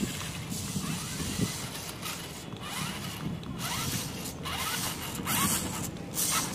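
Toy rock crawler RC car driving on concrete: its small electric motor and gears whirring in uneven spurts, with faint short rising whines, over the scrape of rubber tyres on grit.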